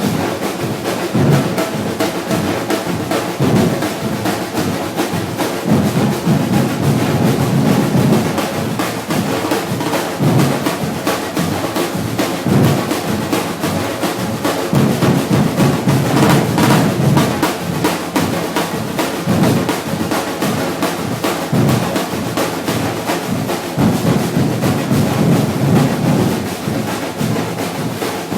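A Brazilian batucada percussion ensemble playing a continuous drum groove: deep bass drums under a fast, dense stream of sharper strokes.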